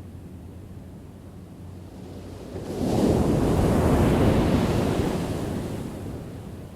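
A wave breaking and washing in: surf noise swells up about two and a half seconds in, holds for a couple of seconds, then fades away, over a low steady rumble.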